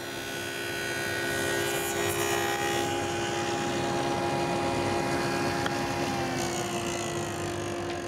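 Table saw with a dado blade stack running, cutting notches across three 2x2 pine pieces pushed through in a jig. Steady motor and blade hum with a hiss of cutting that swells a second or two in; one tone sags slightly in pitch near the end.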